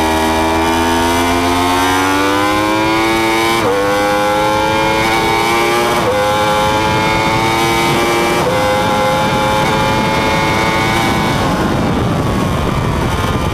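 Yamaha R1 RN32's crossplane inline-four under full throttle, its note rising through the gears with three quick upshifts about 4, 6 and 8.5 seconds in. Toward the end, wind rushing over the onboard microphone at high speed grows and partly drowns the engine.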